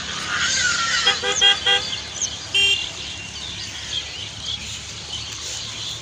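A vehicle horn tooting: three short beeps about a second in, then one more a second later, over steady outdoor background hiss.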